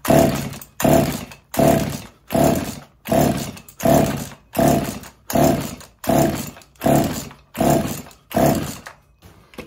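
Two-stroke hybrid chainsaw (Husqvarna 50 with a Partner 5000 top end) being pull-started over and over, about a dozen quick yanks of the recoil starter, each turning the engine over against compression without it firing. The owner then traces the failure to the piston hitting the spark plug.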